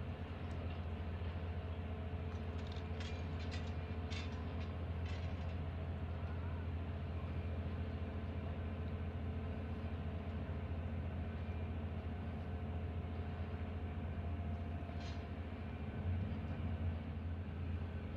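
Steady low engine drone of the car ferry William Frankland running at its landing ramp. A few short high chirps come through about three to five seconds in, and once more near the end.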